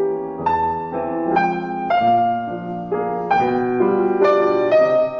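Background piano music: a melody of single struck notes, changing about twice a second.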